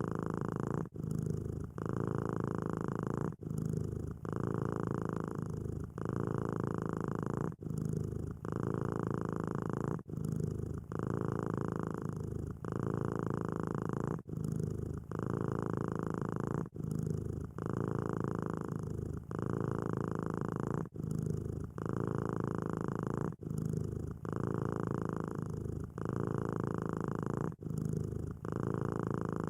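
Domestic cat purring steadily. The purr rumbles in and out with each breath, changing tone between the in-breath and the out-breath, with a short break roughly every one to two seconds.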